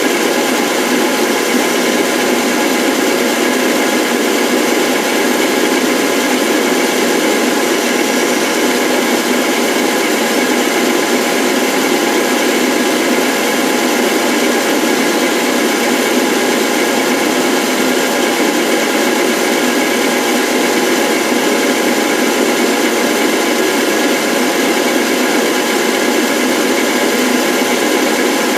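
Power tool running steadily: a constant whir with several steady tones, with no starts, stops or changes in speed.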